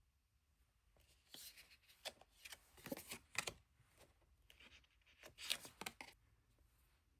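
Stiff paper being handled: cards or pages rustling and sliding against each other in two short bouts, with a few sharper clicks.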